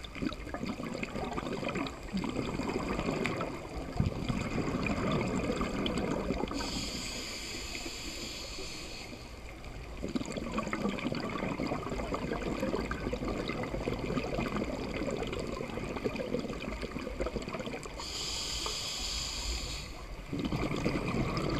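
Scuba diver breathing through a regulator underwater: long stretches of bubbling exhaled air, broken twice by the hiss of an inhalation, about a third of the way in and again near the end.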